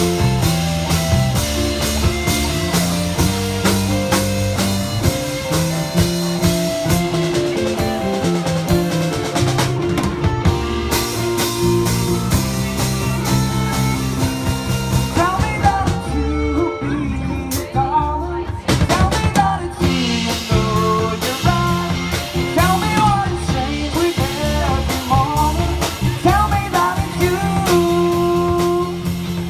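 Live rock band playing: electric guitars, bass and drum kit, with a lead singer's vocals over them, most prominent in the second half.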